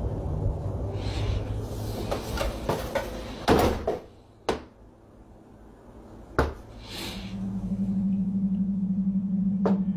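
A door is shut with a bang about three and a half seconds in, after which the outdoor rumble drops away. A few more sharp knocks follow. From about seven seconds in, a low steady musical drone sets in.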